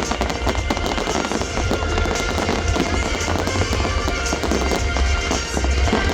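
Fireworks display in full swing, with many shells bursting and crackling in quick succession over music playing.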